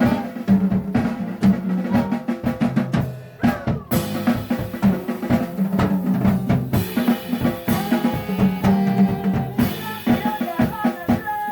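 Background music with a steady drum-kit beat: bass drum, snare and rimshots under sustained pitched instruments.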